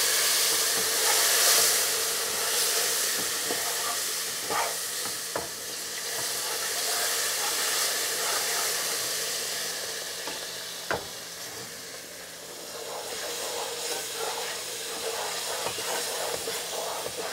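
Sugar syrup hitting a hot pan of toasted whole-wheat flour, oil and butter, hissing and sizzling loudly as its water flashes to steam, while the mix is stirred with a wooden spoon in a stainless steel pot. The hiss is loudest in the first couple of seconds and slowly fades, with a few sharp knocks along the way.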